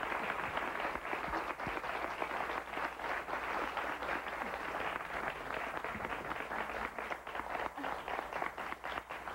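Studio audience applauding, thinning into more separate claps near the end.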